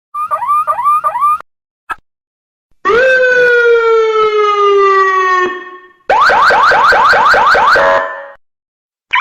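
Electronic car alarm sirens sounding one pattern after another. First comes a short run of rising whoops, then a brief chirp, then a long tone that slowly falls in pitch. Last is a rapid string of rising whoops, about four a second, that ends on a short steady tone.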